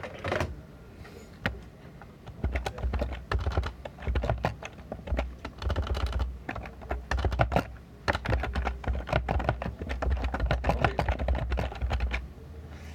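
Fingers typing on a phone held close to its microphone: a quick, irregular run of taps and clicks with dull thumps, getting busier about two seconds in and stopping shortly before the end.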